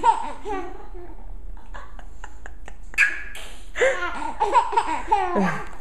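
Laughter in two spells: one right at the start and a longer one from about three seconds in. A few soft clicks fall in the gap between them.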